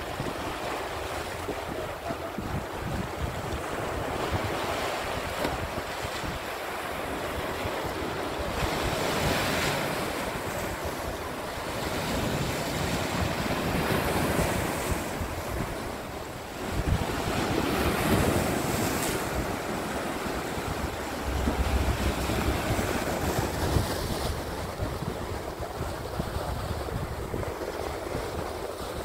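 Sea waves washing in and breaking over shoreline rocks: a continuous rushing surf that surges louder every few seconds, with wind buffeting the microphone.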